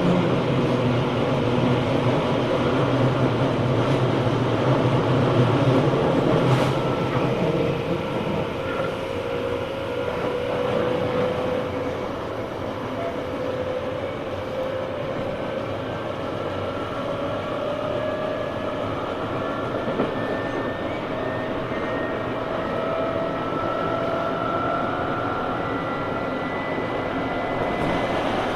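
Tobu 9000 series armature-chopper EMU running: wheel-on-rail noise with a motor whine that rises slowly in pitch as the train gains speed. The car's motor had an abnormal sound at the time, quite unlike a normal 9000 series, which the recordist suspects came from a different motor fitted for a test.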